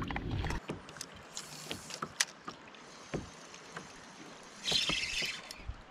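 Handling sounds on a kayak: scattered light knocks and ticks, the sharpest a little over two seconds in, with two short swishes of noise, the louder one near the end.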